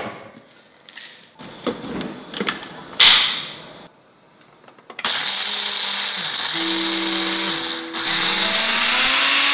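Plastic clicks and knocks as a personal blender's blade base is screwed onto the cup and the cup is seated on the motor base, then the blender runs loudly, dry-grinding roasted black sesame seeds, walnuts and pumpkin seeds. It runs in two bursts of about three and two seconds with a brief stop between, and the motor pitch rises in the second burst.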